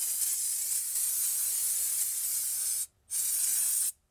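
Aerosol can of brake parts cleaner spraying in a steady hiss, washing grime off the drum-type parking brake shoes; the spray stops briefly about three seconds in, then starts again and cuts off just before the end.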